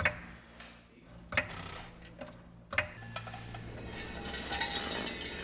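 Hydraulic floor jack and ratchet jack stands being worked: sharp metallic clicks and clacks about a second apart as the jack is pumped and the stands are set, then a rushing noise that builds over the last two seconds.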